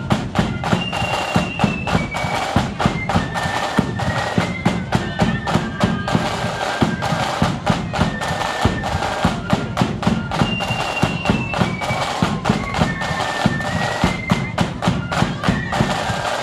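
Marching flute band playing a tune, with the flutes carrying a stepped melody over a steady, driving beat of snare drums and bass drum. The melody phrase comes round twice.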